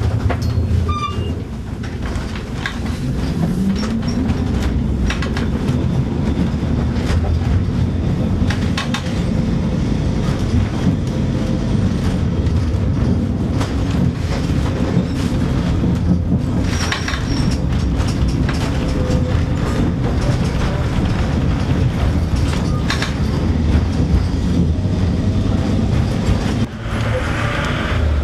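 Old wooden electric tram running on its rails: a steady low rumble with the car body rattling and the wheels clattering and knocking over the track. A rising motor whine comes about four seconds in.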